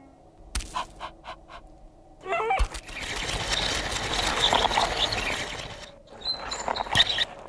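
Cartoon sound effects: a few short ticks, then a long rough scraping as an iron bedstead is dragged up an icy slope on a rope, with a few knocks near the end.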